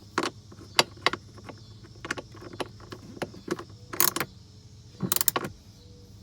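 Wrench tightening the bolts of a Volvo XC90 blower fan housing: scattered metallic clicks and clinks, with two quick runs of rapid clicking about four and five seconds in.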